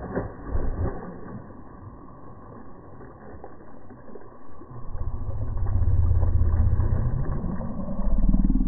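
Slowed-down, muffled splashing of a Murray cod diving back into the water, with a low rumble that grows loud about halfway through.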